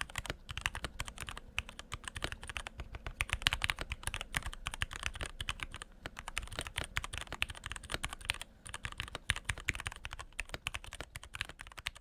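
Typing on a Keychron K6 mechanical keyboard with Gateron Yellow linear switches, tuned stock stabilizers and a tempest tape mod: fast, continuous keystrokes with a few brief pauses.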